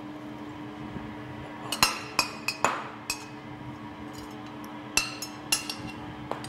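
Metal slotted serving spoon clinking against a ceramic baking dish and porcelain plate, a series of sharp clinks with a short ring, starting about two seconds in.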